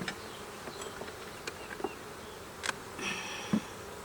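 Honey bees buzzing in a steady hum around an opened hive, with scattered sharp clicks and knocks of wooden hive parts, the loudest a knock near the end.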